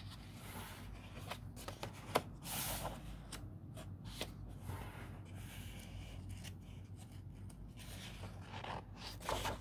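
Faint rustling and rubbing of hands on the paper pages of a picture book, with a few light clicks and taps as the book is handled.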